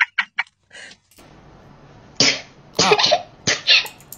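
A young woman coughing: a run of short, sharp coughs, some in quick pairs, starting about two seconds in.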